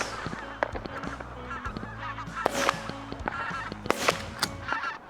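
A flock of geese honking, with many short calls overlapping.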